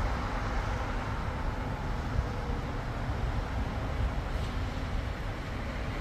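Outdoor snowstorm ambience: a steady, uneven low rumble of wind buffeting the microphone mixed with street traffic.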